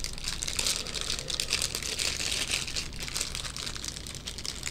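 Clear plastic candy-bar wrapper crinkling continuously as gloved hands work the sealed package open.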